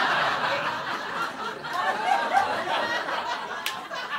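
Audience laughing, loud at first and then tapering off into scattered chuckles, with a single sharp click near the end.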